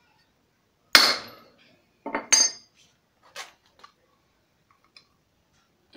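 Metal knocks on a driveshaft CV joint: one hard, ringing blow about a second in, then two quick clinking knocks and a lighter one. They are hammer strikes seating the last part of the tripod joint back into place.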